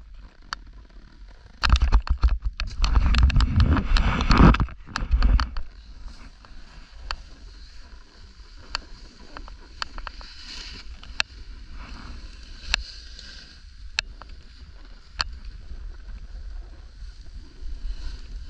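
Sharp click-clack ticks, roughly one every second or so, over a low rushing hiss, with a louder burst of rushing noise from about two to five seconds in.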